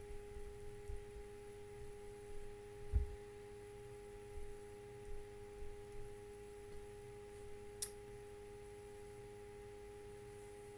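A steady faint hum with a couple of constant tones, broken by scattered low bumps, the loudest about three seconds in, and a sharp click about eight seconds in.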